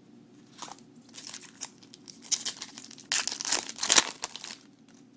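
Crinkling foil wrapper of a baseball card pack being handled and torn open, in scattered rustles with a louder, denser burst of tearing and crinkling past the middle.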